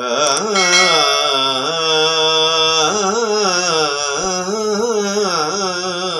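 A man singing a qaseeda's opening phrase: one long, drawn-out vocal line with no clear words, the pitch sliding and wavering in ornaments.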